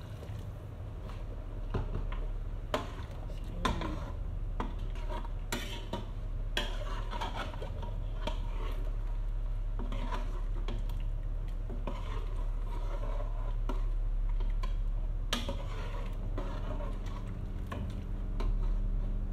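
Boiled water poured from an electric kettle into a pot of meat at the start, then a long metal spoon stirring in the pot, with scattered clinks and knocks of the spoon against the pot, over a steady low hum.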